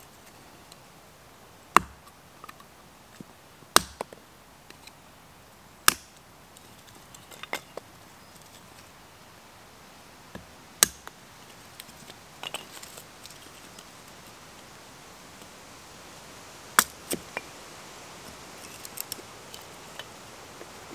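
Knife being batoned through short sticks on a tree stump to split kindling: sharp wooden knocks a few seconds apart, about five loud ones with softer taps between.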